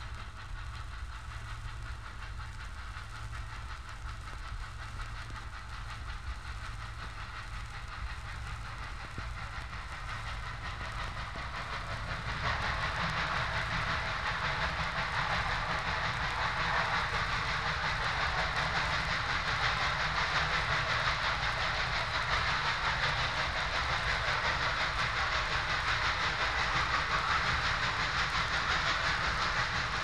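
Norfolk and Western steam train running on the rails: a steady low rumble, with the train noise jumping louder about twelve seconds in and staying loud.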